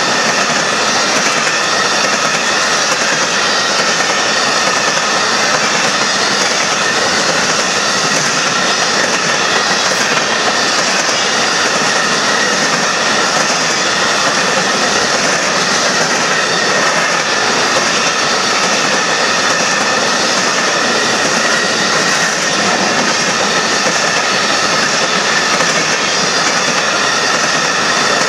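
Union Pacific coal train's hopper cars rolling past close by: a loud, steady rumble and rattle of steel wheels on rail, with a faint high wheel squeal held through it.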